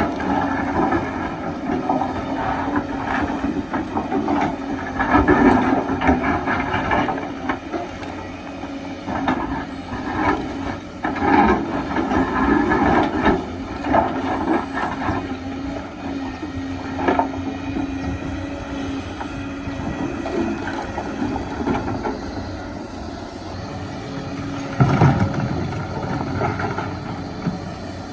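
Kobelco excavator's diesel engine running steadily under load, with rocks scraping and clattering against the bucket in irregular bursts and a heavier knock near the end.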